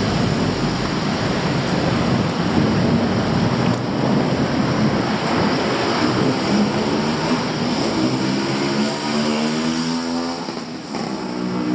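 Busy road traffic with vehicles passing close by. About eight seconds in, one engine rises in pitch as it accelerates.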